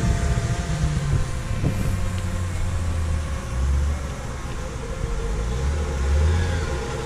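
Audi Quattro Turbo's turbocharged five-cylinder engine running at low revs as the car drives over a muddy field, a low rumble that swells a little twice.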